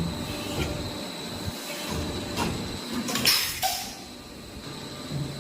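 Blow-moulding machine for 1-litre plastic bottles running, with a steady high whine, a few mechanical knocks and a loud hiss a little past halfway.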